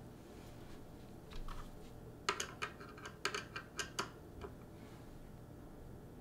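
A quick run of light, sharp clicks and taps from the hard plastic and metal parts of a Caliburn Nerf blaster being handled during maintenance. A few come about a second in, and a dense cluster about two seconds in.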